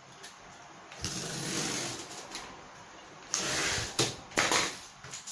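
A utility knife scraping through corrugated cardboard along a ruler in two strokes, the first about a second long, followed by a few sharp knocks of the ruler and cardboard strips on the cutting mat.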